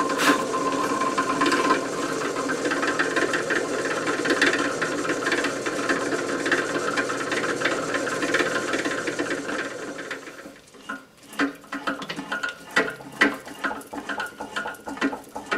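Drill press running with its twist drill cutting through a cast iron cylinder head, a steady machine noise that stops about ten seconds in. It is followed by scattered light metal clicks and knocks as a tap is worked by hand into the drilled holes.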